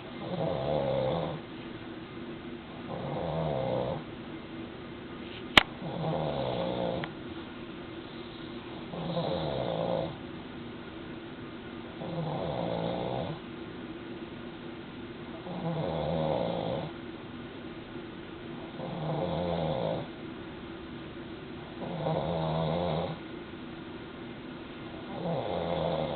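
A man snoring in a steady rhythm, one snore about every three seconds. A single sharp click comes about five and a half seconds in.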